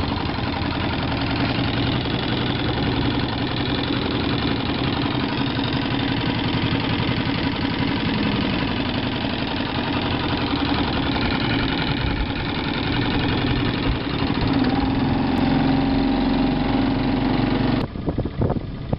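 Lehr 2.5 hp propane outboard motor running steadily, its throttle set with pliers because the lever handle has broken off. The note grows a little stronger and steadier in the last few seconds, then cuts off abruptly near the end.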